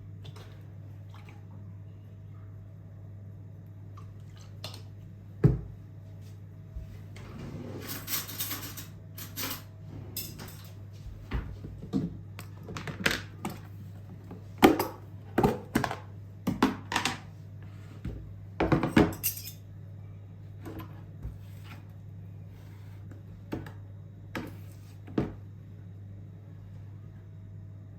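Dishes and cutlery being handled: scattered clinks and knocks, with short scraping rushes around 8 seconds and again around 19 seconds, over a steady low hum.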